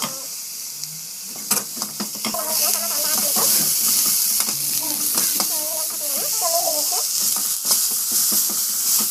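Chopped onions and tomato sizzling in oil in a frying pan while a steel ladle stirs them. The ladle taps against the pan a few times in the first two seconds, and the sizzle grows louder about two seconds in.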